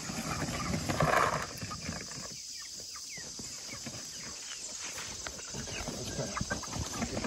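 Flock of young meat chickens clucking and peeping, with insects chirring steadily; a brief rustle about a second in.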